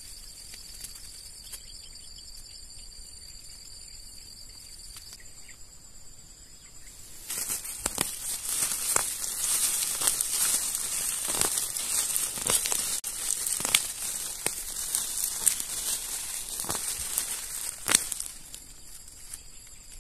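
Clumps of plants pulled up by a gloved hand: rustling leaves, crackling dry litter and snapping roots tearing out of the soil. This starts about seven seconds in and stops shortly before the end. Before it there is a steady high insect drone.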